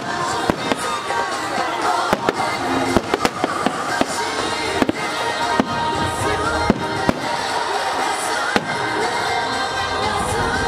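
Aerial fireworks shells bursting one after another, many sharp bangs at irregular intervals, with music playing underneath.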